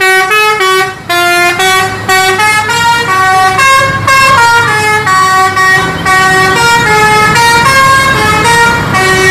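Tour bus's musical multi-tone air horn (an Indonesian 'telolet' horn) playing a quick tune of short notes that step up and down in pitch, over low engine and traffic rumble.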